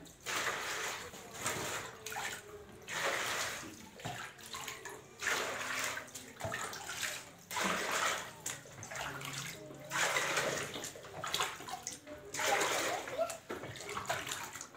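Water splashing and pouring as a plastic mug is dipped into a tub of water and emptied again and again, one scoop every second or two.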